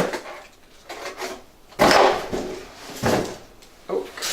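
Cardboard shipping box being handled and searched: a handful of separate scraping, rubbing knocks of cardboard, roughly a second apart.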